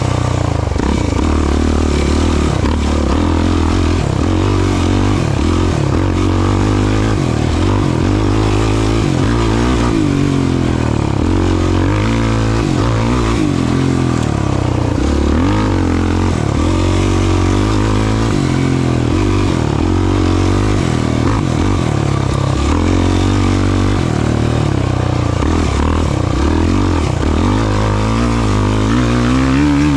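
Off-road race vehicle engine running hard, its revs rising and falling again and again.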